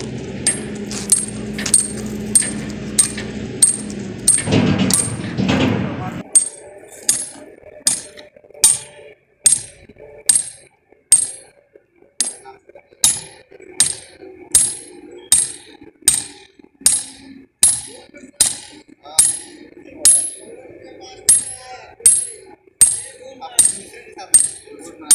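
Steady hammer blows on a steel drive pin set in a scraper/guide plate, driving it into compacted soil to form the hole for a Troxler nuclear density gauge's source rod. The blows come nearly two a second, each a sharp metallic clang with a bright ring.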